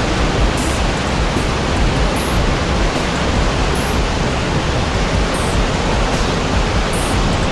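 Loud, steady rush of a stream in flood, its water pouring and churning without a break.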